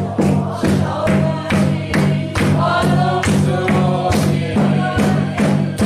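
Congregation singing a gospel hymn with hand-clapping on a steady beat, about two claps a second, over sustained low notes. The music cuts off suddenly at the end.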